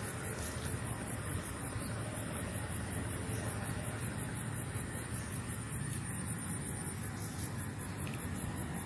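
High-pitched insects chirring in a rapid, even pulse, steady throughout, over a low background hiss.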